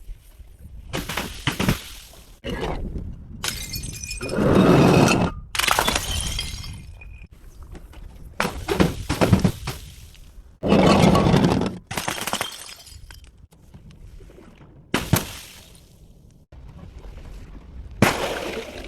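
Glass bottles smashing one after another: about eight separate crashes of breaking glass with scattering shards, each cut off abruptly before the next begins.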